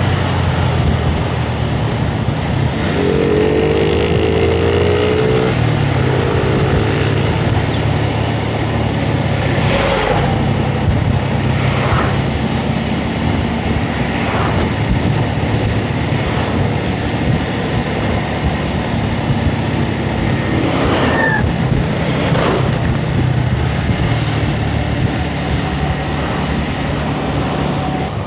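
Yamaha Vixion's single-cylinder engine running steadily under way, with wind rush on the microphone; the rider calls the engine rough.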